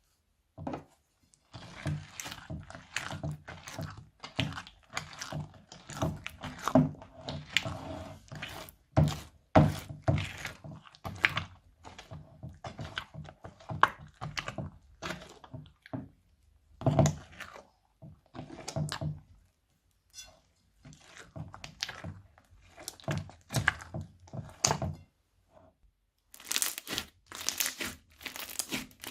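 Crunchy slime being squeezed and pressed, giving dense runs of crackles and pops with a few short pauses; the crackling turns brighter and denser near the end.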